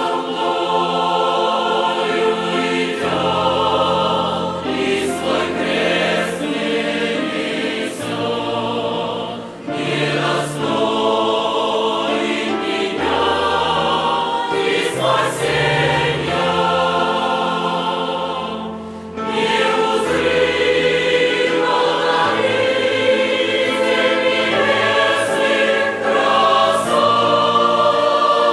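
A choir singing a hymn in sustained phrases. The singing breaks off briefly about two-thirds of the way through, then resumes.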